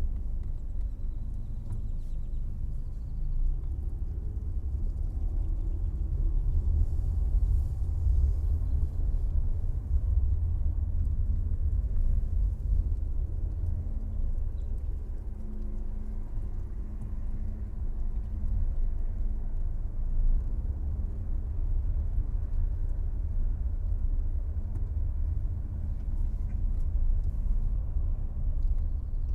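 A car being driven: a steady low rumble of engine and road.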